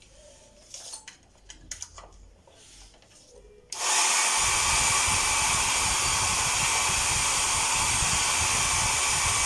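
Hair dryer switched on about three and a half seconds in after a few faint handling clicks, then blowing steadily at full speed. This is a test run after its broken heating-coil wires were rejoined.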